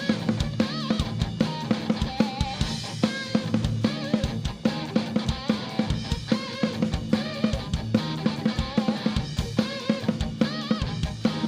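Live rock band playing a passage between sung lines, the drum kit's bass drum and snare keeping a steady beat under wavering melodic lines.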